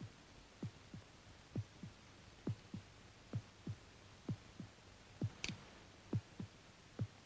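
Heartbeat sound effect: slow, steady double thumps (lub-dub), one pair a little under a second apart. A short, sharp click sounds about five and a half seconds in.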